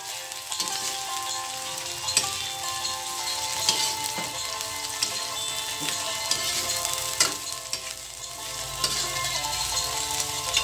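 Carrot and red bell pepper strips sizzling in hot oil in a wok while a spatula stirs them, scraping and knocking against the pan about once a second.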